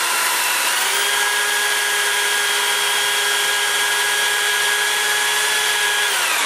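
Electric drill spinning a valve-guide reamer above half speed, reaming a valve guide in a cast-iron Chevy small-block cylinder head oversize to take a bronze guide liner. It runs as a steady high whine and starts to wind down in pitch at the very end.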